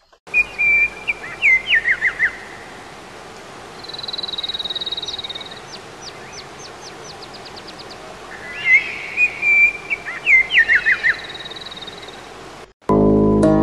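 Songbirds singing over a steady rush of stream water: repeated whistled phrases of quick falling notes, with a fast high trill between them. Guitar music comes back in near the end.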